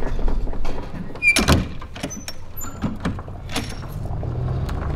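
Rear ramp door of an enclosed cargo trailer being swung up and shut, with one loud thunk about a second and a half in, followed by a few lighter clicks and knocks from the door hardware.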